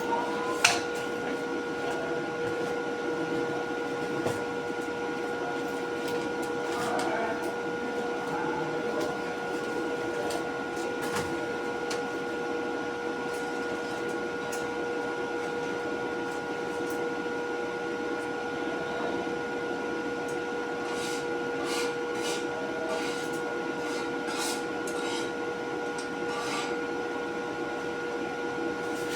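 Steady machine hum carrying several fixed tones, with a sharp click a little under a second in and a few fainter clicks and taps later.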